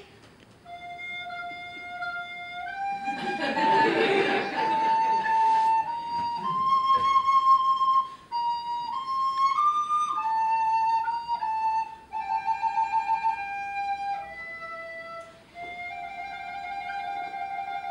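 A single instrument playing a slow solo melody of held notes that step up and down, some with vibrato. A short rush of broad noise comes in about three seconds in and fades out by about six seconds.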